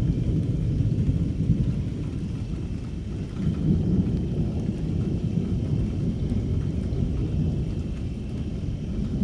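Thunder rumbling on and off in a thunderstorm, swelling near the start and again about four seconds in, with rain falling.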